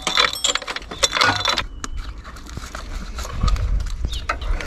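Metal chain of a chain wrench clinking and rattling as it is wrapped around a camshaft timing sprocket, with most of the clinks in the first second or so.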